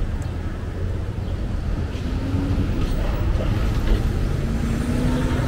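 Steady low rumble of city street traffic, with a faint engine drone coming through about two seconds in and again near the end.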